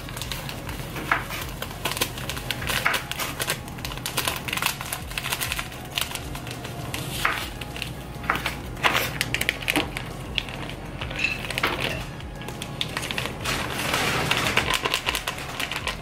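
Small plastic ingredient packets crinkling and rustling in the hands as breadcrumbs are shaken out into a plastic bowl, with many quick, irregular crackles.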